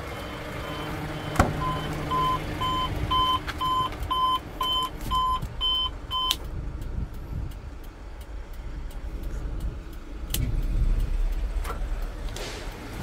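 Electronic warning beeper on a tow truck, sounding short two-toned beeps about three times a second, which cut off abruptly about six seconds in as a switch on the cab's overhead control panel is pressed. A sharp click follows about ten seconds in.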